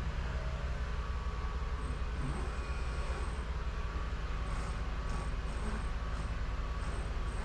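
Steady low mechanical rumble of a motor or engine running, even throughout, with faint regular high ticks in the second half.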